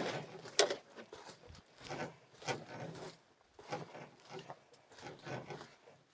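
Footsteps and rustling on a forest trail, a short scuffing step roughly every half second at walking pace, heard from under an overturned canoe being carried on a portage.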